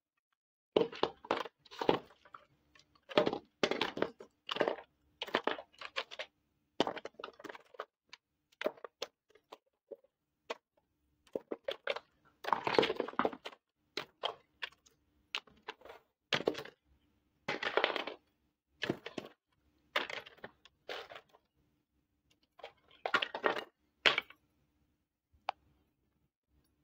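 Small hard-plastic toy kitchen pieces clattering and knocking together as they are handled in a plastic basket and set down on a hard floor, in irregular bursts of clicks and rattles with short pauses between.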